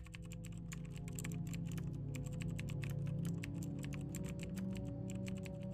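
Rapid, irregular key clicks of typing as the text is typed on, over a low, steady ambient music drone.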